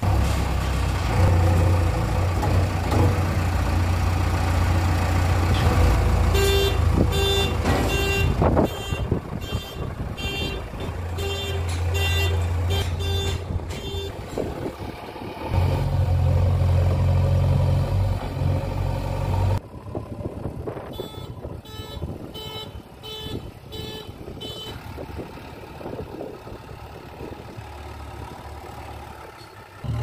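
JCB 3DX backhoe loader's diesel engine running and revving as the machine drives about. Its reversing alarm beeps at about one and a half beeps a second, twice for several seconds each time.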